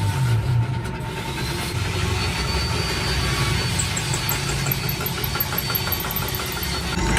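A tractor engine running steadily at idle.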